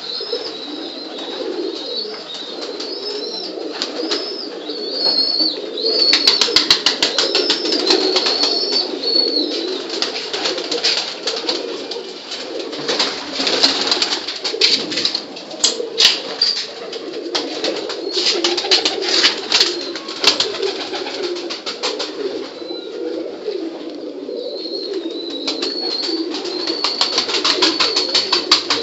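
Domestic pigeons cooing continuously, a dense overlapping murmur of low coos. Thin high wavering calls ride above it at first and again near the end, and through the middle come rapid sharp clicks and flutters.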